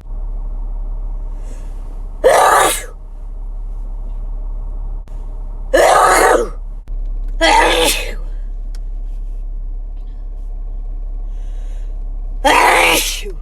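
Four loud human sneezes, each a short sharp burst, spaced a few seconds apart over a steady background hum.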